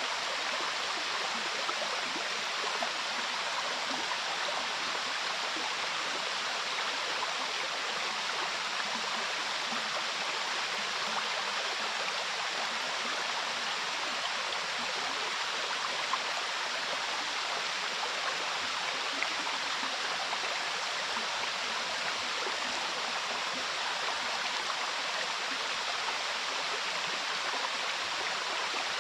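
A mountain stream rushing over rocks, heard from in the stream itself, blended with the fall of a waterfall: a steady, even rush of water with no breaks.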